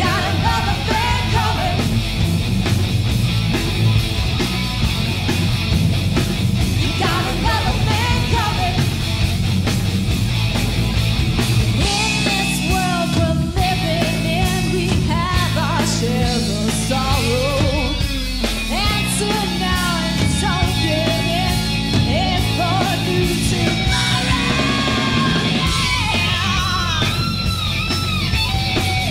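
Live hard rock band: a woman's lead vocal sung over electric guitars, bass and drums.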